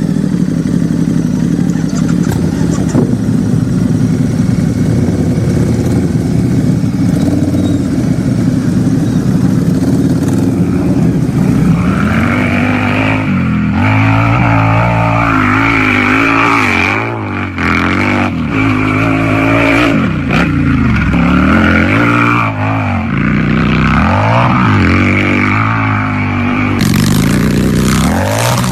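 Harley-Davidson V-twin motorcycle engine idling steadily, then, about twelve seconds in, revved again and again, its pitch rising and falling several times.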